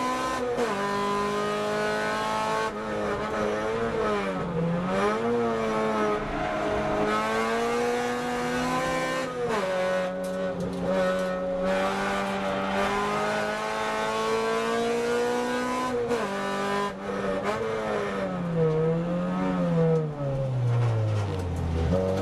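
Car engine heard from inside the cabin while driven hard on a race circuit, its revs holding and then rising and falling with gear changes and corners. Near the end the revs fall away steeply.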